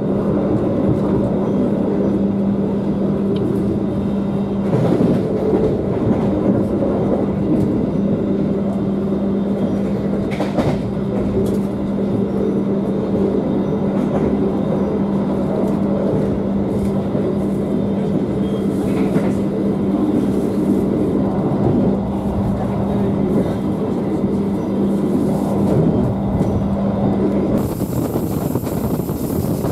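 Running noise inside a stainless-steel passenger coach of a train travelling at about 90 km/h: a steady rumble of wheels on rail with a constant low hum. Near the end it cuts to the sound through an open window, with wind hiss over the rail noise.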